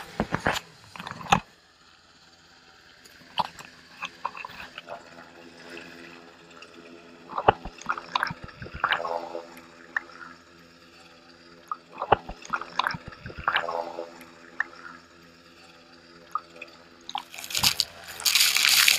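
Sea water sloshing and splashing against a camera at the surface, over a steady hum from the hovering Sikorsky S-92 helicopter. Just before this, about the first second and a half holds sharp slaps of spray from a fast boat. Near the end comes a loud rush as waves break over the camera.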